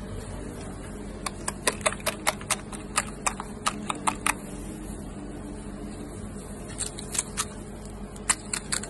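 Crisp, hollow fried kachori and puri shells cracking and crackling as gloved fingers break holes in their tops: a dense run of sharp crackles over the first few seconds, then two shorter runs near the end, over a steady low hum.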